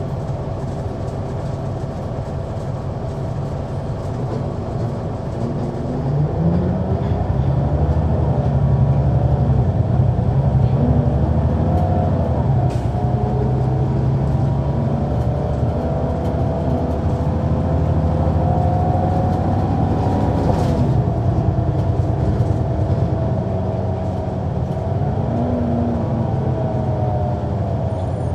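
Caterpillar C9 ACERT diesel engine of a 2004 Neoplan AN459 articulated bus, heard from on board while the bus is running. About six seconds in the engine note rises and gets louder, then holds strong, and its pitch drops a little after twenty seconds.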